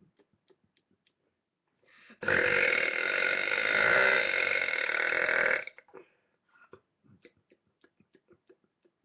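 A boy's single long, loud belch, about three and a half seconds long, starting about two seconds in and cutting off sharply. Faint clicks and small mouth noises come before and after it.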